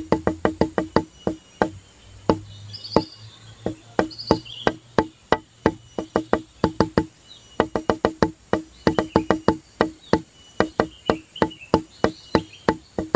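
Background music built on quick pitched knocks, about six or seven a second, thinning to a few scattered knocks for several seconds in the middle before the fast run returns.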